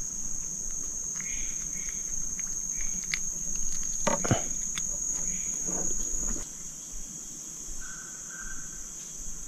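Steady high-pitched chirring of insects, with a few clicks and a brief rustle of handling in the middle.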